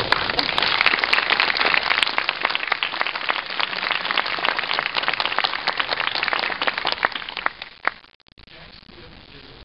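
Cinema audience applauding: a dense patter of many hands clapping that thins and dies away about eight seconds in.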